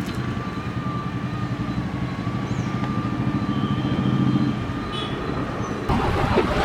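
Small electric gear motor of a toy road roller running steadily: a low rumble with a thin, steady whine. About six seconds in, this gives way to a loud, noisy rustle like wind on the microphone.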